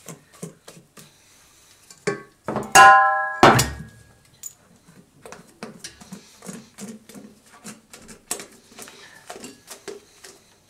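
Spatula scraping and tapping against a stainless steel mixing bowl as batter is poured out into a baking dish. About three seconds in, the metal bowl is knocked and rings briefly, followed by a loud knock.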